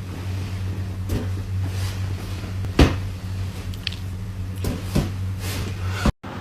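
A few knocks over a steady low hum, the loudest about three seconds in and another about five seconds in.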